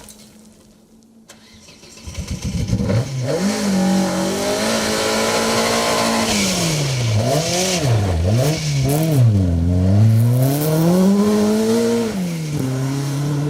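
A rally car's engine coming in after a quiet couple of seconds, revving hard at speed. Its pitch climbs, then drops and climbs again several times in quick succession as the driver shifts and lifts, before rising once more near the end.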